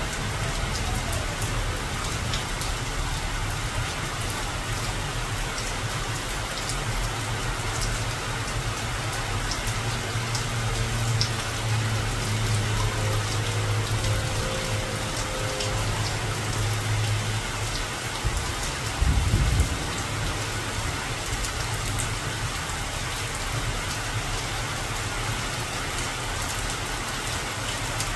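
Steady rain falling on the broad leaves of garden trees such as frangipani. A low rumble rises beneath it through the middle, and a brief low thump comes about 19 seconds in.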